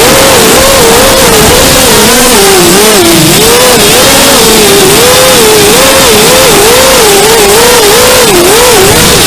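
Loud whine of a 200-size FPV racing quadcopter's brushless motors (DYS SE2205) and propellers in flight, the pitch wobbling up and down about twice a second as the throttle and flight controller vary the motor speed.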